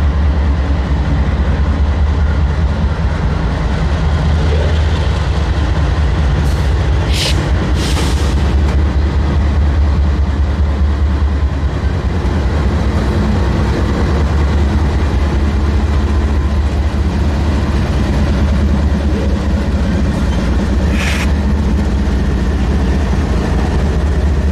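Norfolk Southern freight train's diesel locomotives passing at a crawl as the train pulls out of the yard: a loud, steady low engine drone, with two brief high hisses, one about a third of the way in and one near the end.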